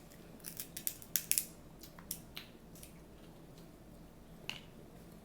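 Crab leg shells being cracked open at the table: a quick series of sharp cracks and clicks in the first two and a half seconds, with one more crack near the end.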